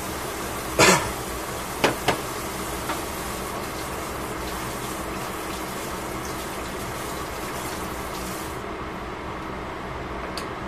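Cabbage and carrots cooking in a lidded steel pot: a steady bubbling hiss, with a sharp pop about a second in and two more quick pops around two seconds.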